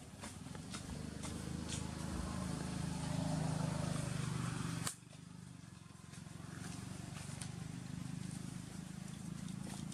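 Low hum of a distant motor engine, swelling and then dropping off abruptly about five seconds in before building again, with scattered light clicks and rustles.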